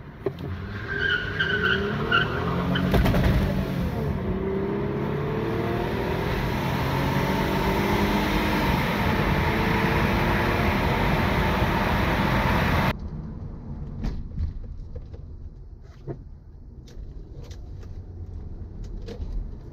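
Toyota Camry V6 engine at full throttle, pulling hard from a standstill inside the cabin. The revs climb, drop at an automatic upshift about three seconds in, then climb again. A brief tire squeal comes at launch. About thirteen seconds in it gives way abruptly to quieter cabin road noise.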